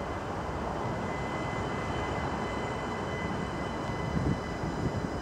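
Distant rumble of an approaching Belgian electric multiple unit, with a thin steady high whine over it. Wind buffets the microphone a few times near the end.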